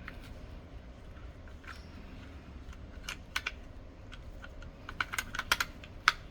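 Scattered light clicks and taps of the plastic parts of a Kaadas R6 digital lock's back handle assembly being handled and fitted back together, a few about three seconds in and a quick run of them near the end.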